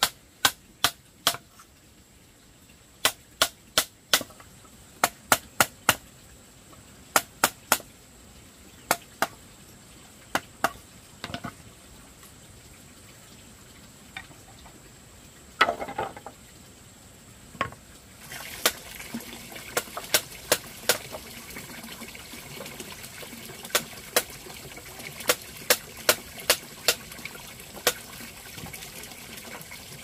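Repeated sharp strikes of a hand tool, coming in quick groups of two to four with short pauses between, with a brief scraping noise about sixteen seconds in. A steady hiss rises under the strikes about eighteen seconds in.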